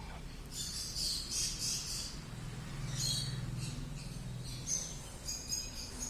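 Birds chirping in short, irregular high calls, over a low steady hum.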